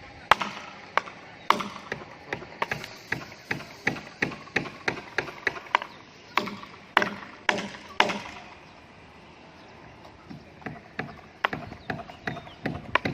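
Hammer striking nails into wooden formwork boards: a steady run of sharp blows, about two or three a second, that stops for a couple of seconds past the middle and then starts again.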